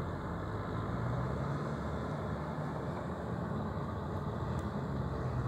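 Distant Kubota M6040 SU tractor's diesel engine running steadily under load as it ploughs a flooded rice field: an even low hum.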